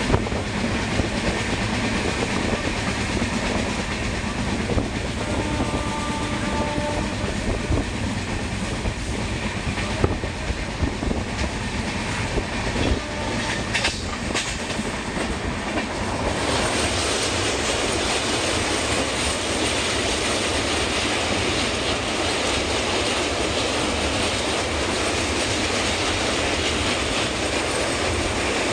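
An Indian Railways passenger train running at speed, heard from on board: steady wheel-and-rail rumble and rushing noise with a clickety-clack over the rail joints. About halfway through, the noise turns steadier and more hissing.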